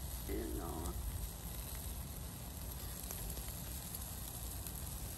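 Meat sizzling on a wire grill over glowing charcoal: a steady hiss with a few faint crackles.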